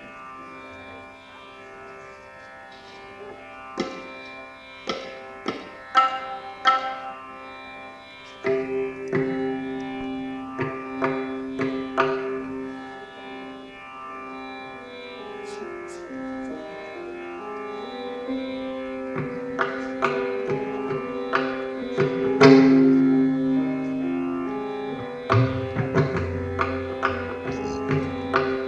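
Tabla being played in teen tal, the 16-beat cycle, over a steady drone and a repeating melody that moves in steps. The drum strokes are sparse at first and become busier and louder after about eight seconds, with deep booming strokes near the end.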